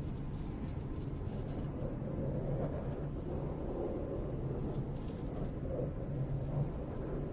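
A microphone being brushed, giving a steady, low, scratchy rumble.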